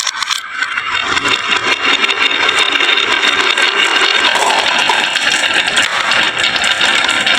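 Marbles rattling and clicking down a wooden HABA marble run, a dense continuous clatter.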